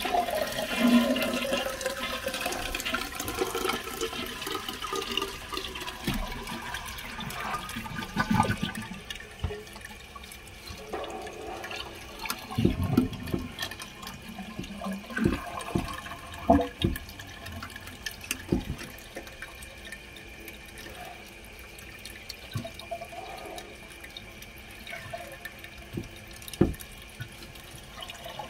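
A toilet flushing, the tank water rushing and swirling out for the first several seconds, then water running on with a steady hiss. Scattered knocks and clunks come through it from hands working on parts inside the tank.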